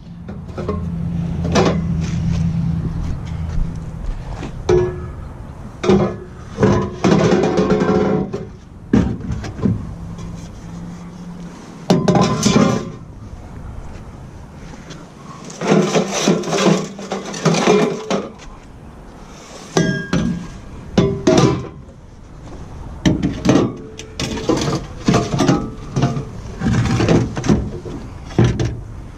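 Music with steady low tones and many sharp, irregular hits.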